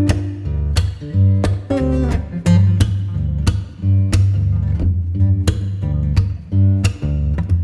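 Background music: guitar played with plucked notes and strums over a steady bass line.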